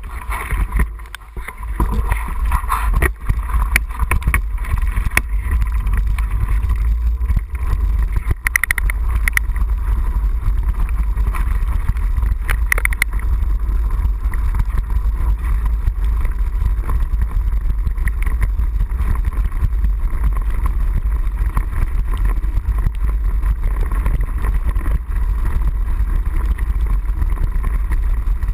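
Wind rumbling on a handlebar-mounted GoPro HD Hero 960 as a mountain bike rides along a rough dirt and gravel track, with rattles and knocks from the bike over bumps, most of them in the first half.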